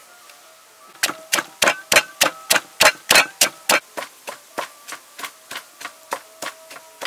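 Wooden pestle pounding chili peppers and garlic in a wooden mortar, about three even strikes a second starting about a second in. The strikes are louder at first and grow softer after a few seconds.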